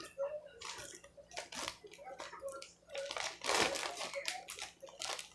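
Plastic baggie rustling and crinkling in short, irregular bursts as floured pork medallions are dropped into it and handled.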